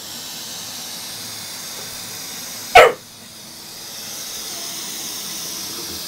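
Robotic vacuum cleaner running with a steady high hiss. About three seconds in, a spaniel gives one sharp, loud bark at it.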